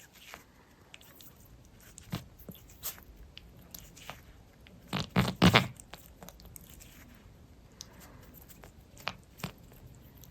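Tuxedo cat grooming her fur: scattered wet licking clicks and smacks, with a louder cluster of three or four quick noises about five seconds in.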